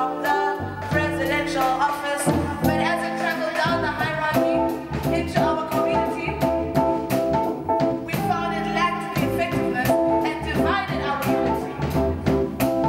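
A woman singing a song, accompanied by a hollow-body electric guitar.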